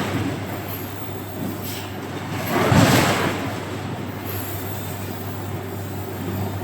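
Forging-factory machinery: a steady low hum with a rush of noise that swells and fades, loudest about three seconds in.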